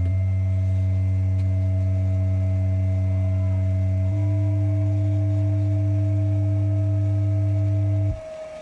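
American Bass Titan 1244 subwoofer in a sealed box playing a steady low bass test tone, driven hard by an Alpine PDR-M65 amplifier under a power test. The pitch steps up slightly about halfway through, and the tone cuts off abruptly near the end.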